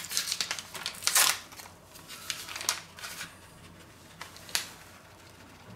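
Paper sachet of powdered sugar being crinkled and tapped as the sugar is shaken out: a scatter of soft rustles and clicks, the loudest about a second in and again about four and a half seconds in.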